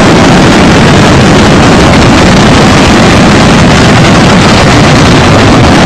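A whole fireworks show's shells going off at once in one continuous, very loud roar of bursts and crackle, with no gaps between explosions. It is the sound of a malfunction that set off the entire display together.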